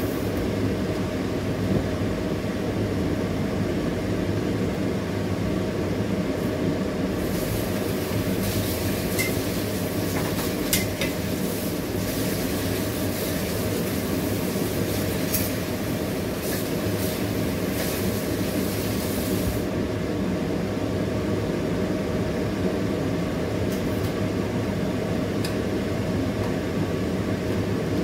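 Steady low mechanical hum of a kitchen fan running. From about seven to twenty seconds in a hiss rises over it, with a few light clicks.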